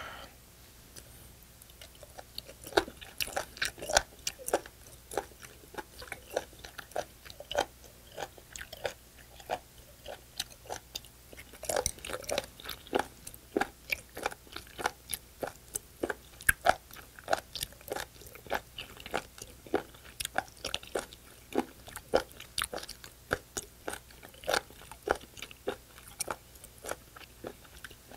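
Close-miked chewing of raw spoon worm: crisp, crunchy bites and mouth clicks at roughly two a second.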